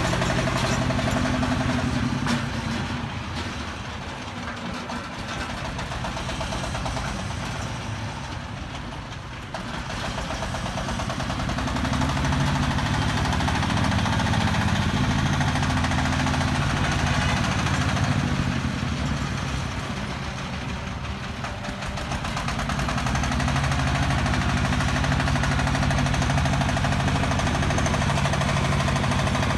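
Diesel engine of a self-loading concrete mixer running steadily. Twice it drops quieter for several seconds, about three seconds in and again around twenty seconds, then comes back up.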